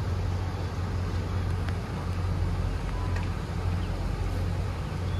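Boat engine idling: a steady low drone.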